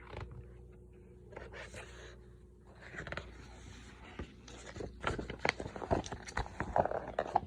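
Paper and hand-handling noises: rustling, scraping and light clicks as a picture book is handled and its pages turned, growing busier about two-thirds of the way through.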